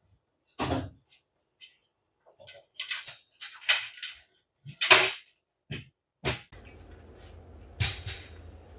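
A series of sharp clacks and knocks from a white steel folding two-step ladder being taken out and unfolded, the loudest clack about five seconds in.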